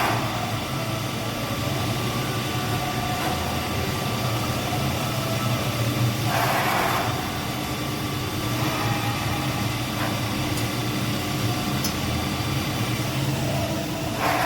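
Special-purpose milling machine for washing machine motor shafts running with a steady hum, with a short hiss about six seconds in.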